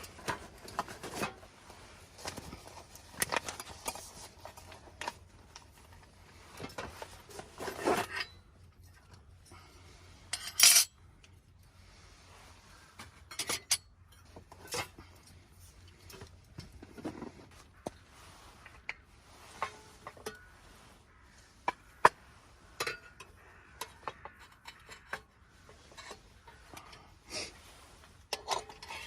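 Irregular clinks, taps and scrapes of cookware and eating utensils being handled, with a louder, brief clatter about ten seconds in and a sharp click near twenty-two seconds.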